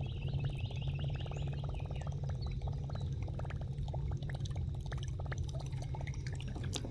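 Water trickling and splashing around a kayak as it moves through shallow water, over a low steady rumble. A few faint chirps are heard near the start.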